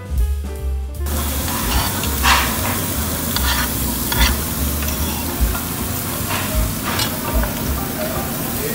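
Background jazz music cuts off about a second in, giving way to meat and shrimp sizzling on a tabletop Korean barbecue grill, with a few sharp clicks of metal tongs.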